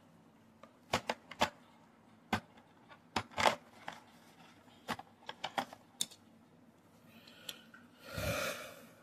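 Scattered sharp clicks and taps, about a dozen, from handling a small die-cast toy car, then a brief rustle about eight seconds in as the car is brought up to the camera.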